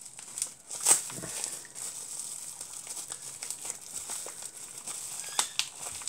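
Bubble wrap crinkling and crackling as it is handled and peeled off a small die-cast model car, with a few sharper crackles about a second in and again near the end.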